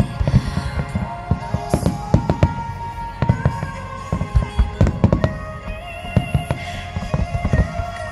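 A rapid barrage of aerial firework shells bursting overhead: a dense, uneven run of booms, several a second, with music playing underneath.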